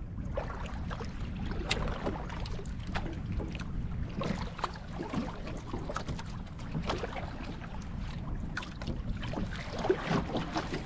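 Choppy sea water slapping and splashing against a small boat's hull at uneven intervals, over a steady low rumble of wind on the microphone.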